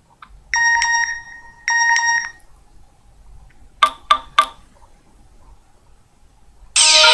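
Nokia N72 ringtones: a bell-like tone sounds twice, about a second apart, then three short clicks come near the middle. A new, busier melodic ringtone starts loudly just before the end.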